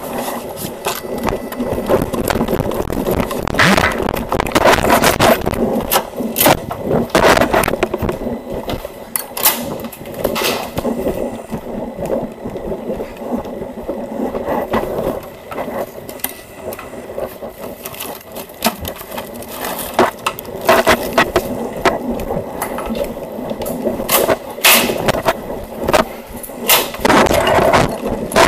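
A body-worn camera rubbing and knocking against the wearer's uniform as he walks, with scraping and irregular knocks from footsteps and handled gear.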